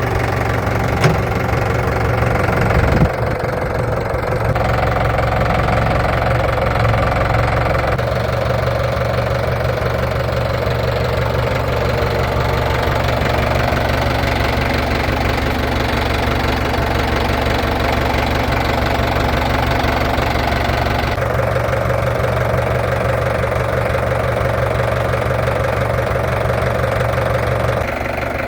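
Tractor engine running steadily with a knocking clatter, its note shifting a few times. There is a short sharp knock about three seconds in.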